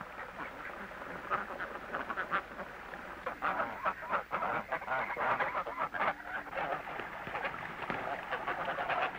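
A flock of poultry calling: a dense, irregular run of short overlapping calls, busier from about three seconds in.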